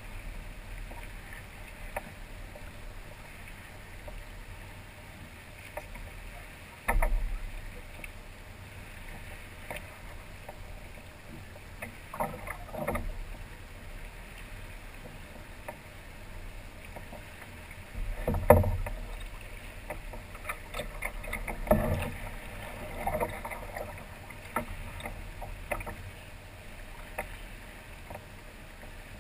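Water lapping against the hull of a Hobie kayak, with a few sudden louder knocks, the loudest about two-thirds of the way through.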